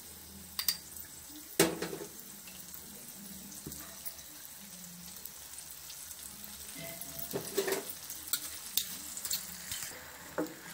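Oil tempering with chillies and spices sizzling in a kadai as lemon juice is strained into it. A few sharp knocks of utensils against the pan are heard, the loudest about a second and a half in and several more near the end.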